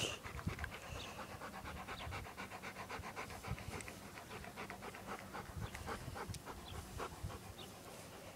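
Large black-and-tan dog panting rapidly and evenly through its open mouth, about five breaths a second.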